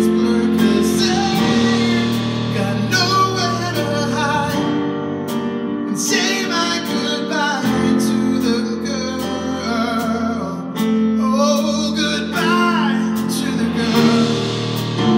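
Live pop-rock song: a man singing a melody over acoustic guitar chords, with drums keeping a steady beat.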